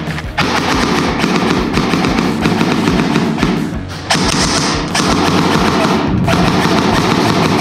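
Airsoft gun firing long, rapid full-auto bursts, a dense stream of fast clicks with short breaks about four and six seconds in.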